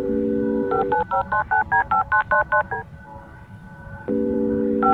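A steady telephone dial tone, then rapid touch-tone keypad dialing, about seven beeps a second for two seconds; near the end the dial tone returns just before a second run of dialing starts.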